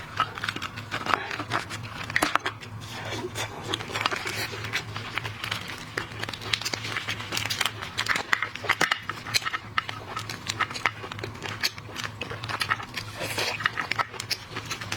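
Shrimp shell being broken and peeled by hand, close up: a dense, irregular run of crackles and sharp clicks, over a steady low hum.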